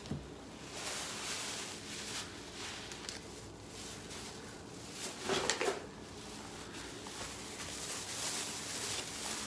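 Plastic grocery bags and packaging rustling and crinkling as groceries are handled and unpacked.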